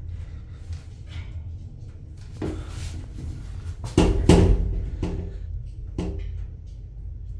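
Old Bennie passenger lift car: a steady low hum with a few clunks and knocks. The loudest come as a pair about four seconds in, with a brief ringing tone.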